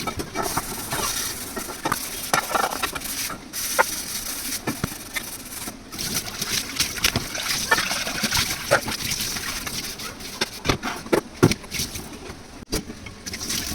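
Irregular knocks, clinks and clatter of kitchen utensils and dishes being handled, with some water splashing.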